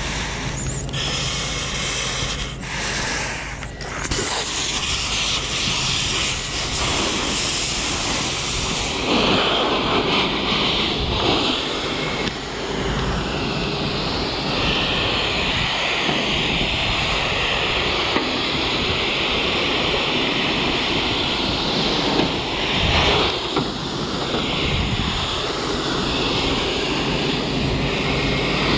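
Firefighting hose nozzle spraying foam: a steady rushing hiss that grows brighter from about nine seconds in.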